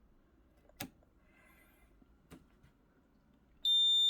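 Two sharp clicks, then the piezo buzzer of an FPGA-based alarm system starts a loud, steady high-pitched beep near the end.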